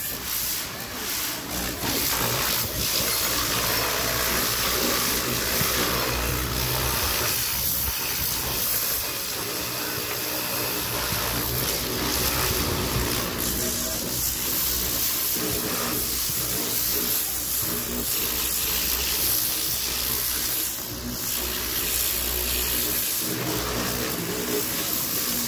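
High-pressure plunger-pump car washer running steadily: its water jet hisses, with the motor and pump humming low underneath.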